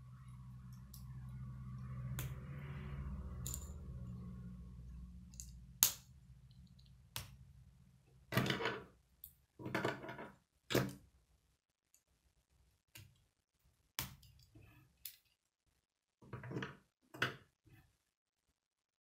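Plastic K'nex connectors and rods clicking and rattling as they are handled and snapped together, a dozen or so short sharp clicks. A low hum swells and fades away in the first five seconds or so.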